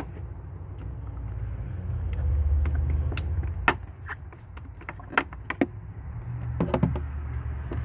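Scattered sharp plastic clicks and scrapes as a trim clip removal tool pries at a two-piece plastic push clip on an Audi A6 air box, over a steady low rumble. The clicks come in small clusters, a few around the middle and a last group near the end.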